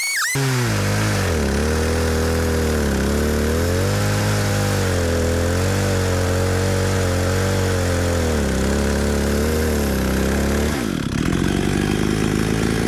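Chainsaw engine on an Alaskan chainsaw mill running under load through a pecan log. Its pitch wavers as the cut goes on, and about eleven seconds in the note drops and the sound turns rougher and steadier.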